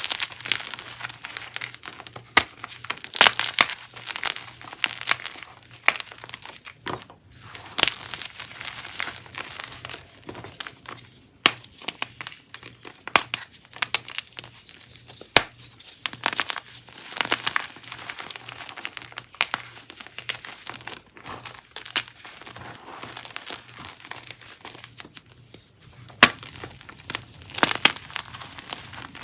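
Chunks and blocks of gym chalk being crushed and crumbled by hand: a continuous soft crumbling punctuated by many sharp, crisp crunches.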